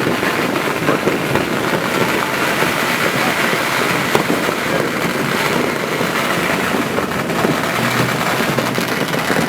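Fireworks and firecrackers going off in a dense, unbroken barrage, many small bangs running together into a steady crackle.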